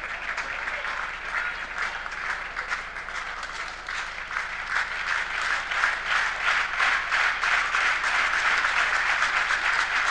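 Arena audience applauding between rallies, a dense crackle of many hands clapping that swells about halfway through.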